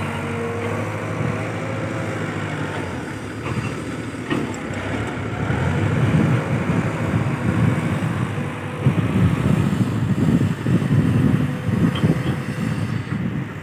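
Kobelco SK210-8 Super XM hydraulic excavator's diesel engine running while it digs. It is steady at first, then heavier and rougher from about six seconds in as it works under load, with a few light knocks around four seconds in.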